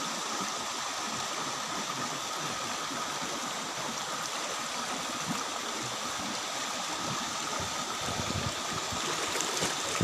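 Shallow waterfall stream rushing over flat rock in small cascades: a steady, even rush of water.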